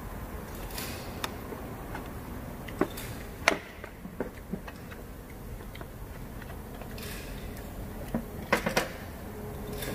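Scattered clicks and light taps of hand tools and small parts being handled while a Honda GX35 brush-cutter engine is reassembled, with a quick cluster of sharper knocks near the end.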